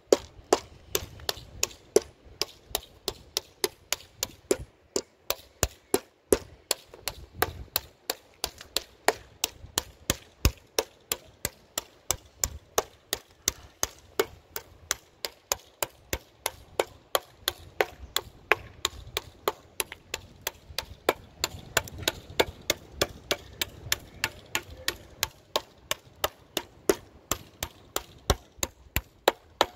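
A hammer cracking hazelnuts one after another as they sit in the hollows of a wooden board: quick, sharp cracks at about three a second in a steady rhythm.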